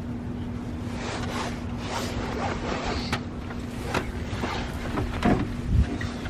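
Scattered clicks and small knocks of hands working on relays under a car's hood, over a steady low hum and a low rumble of wind on the microphone.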